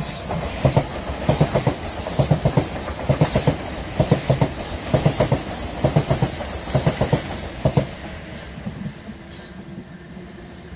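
Gatwick Express Class 387 electric multiple unit passing close by. Its wheels knock over the rail joints in quick repeated groups of clacks over a steady rumble, and the clatter stops about eight seconds in as the last coach goes by, leaving a fading rumble.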